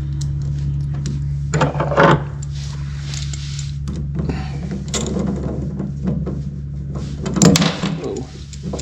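Hands working hose clamps and tools onto a boat's fuel line: a few knocks and clunks, the loudest about 2 seconds in and again near the end, over a steady low hum.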